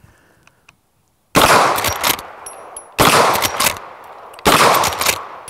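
Three shots from a Henry All-Weather lever-action rifle in .44 Magnum, about a second and a half apart, each trailing off in a short echo.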